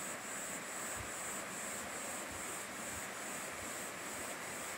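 Mountain stream rushing over rocks: a steady hiss of running water, with a faint high pulsing about twice a second over it.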